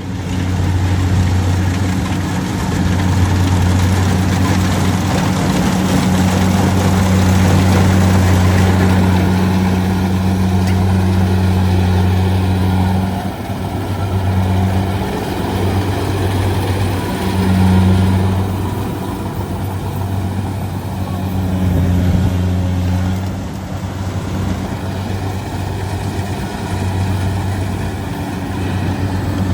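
Rice combine harvester's engine running with a steady low drone, dipping and swelling in level several times from about halfway in.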